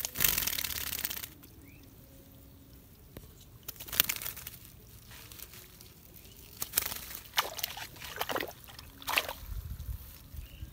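Wet splashing and sloshing as a caught fish is handled and pushed into a mesh net bag lying in shallow water. There is a longer splash at the start, then a run of short, irregular splashes and a low handling rumble near the end.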